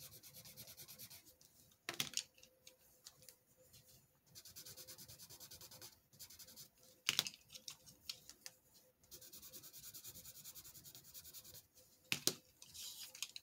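Coloured graphite pencil scribbling on paper in quick back-and-forth strokes as colours are swatched, in several runs with pauses between. Three sharper clicks fall about five seconds apart.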